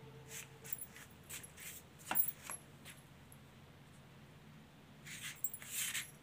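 Kitten eating from a plastic food dish: a string of short, scratchy chewing sounds, a sharp click a little after two seconds in, and a louder cluster of scratchy noises near the end.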